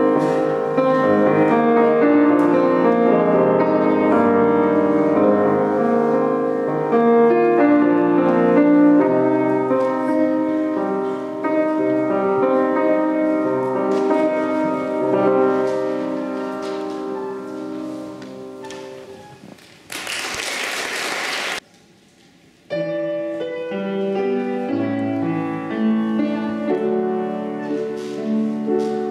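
Solo piano on an Estonia grand piano: the piece's last notes die away about two-thirds of the way in. A short burst of applause follows and is cut off abruptly, then after a brief silence the piano starts a new piece.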